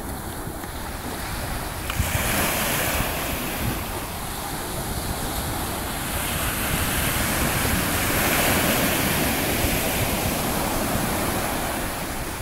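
Ocean surf breaking and washing up a sandy beach, a steady rushing wash of water. A wave crashes about two seconds in, and the wash swells louder again midway through.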